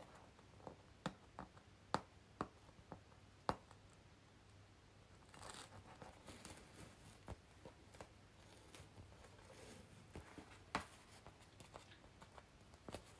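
Near silence with faint scattered clicks and taps and a couple of brief rustles: quiet handling of objects.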